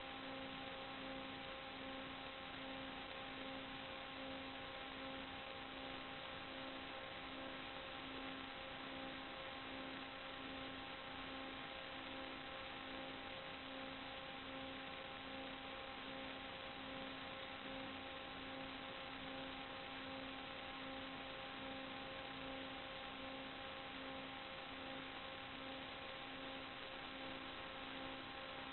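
Steady static hiss with a constant electrical hum of several fixed tones, the lowest one pulsing evenly, unchanged while the plane banks and turns: noise on the analog FPV video link's audio channel rather than the motor.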